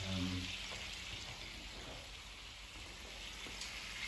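Smoked streaky bacon sizzling steadily in a frying pan in a rum syrup reduced at high heat, its fat crisping up. There is a brief low hum at the very start.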